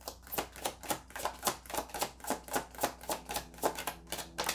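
A deck of tarot cards being shuffled by hand: a quick, even run of card slaps and clicks, about five a second.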